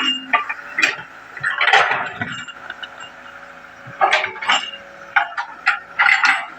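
Excavator at work: irregular metallic clanks and knocks over a steady engine hum.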